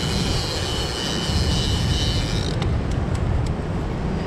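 Heavy surf-casting reel's clicker buzzing in a high-pitched whine as line is pulled off it, stopping about two and a half seconds in, followed by scattered sharp clicks as the reel is worked to set the hook on a fish taking a big tuna-head bait. Under it is a steady low rumble of surf and wind on the microphone.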